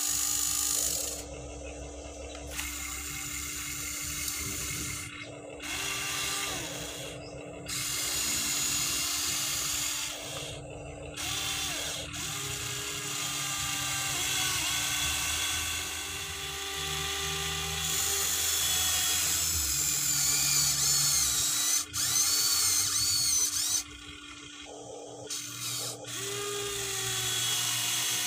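Huina 1593 RC excavator's small electric motors and gearboxes whining in runs of a few seconds each, stopping and starting as the boom, arm, bucket and turntable move. The pitch rises and falls with motor speed.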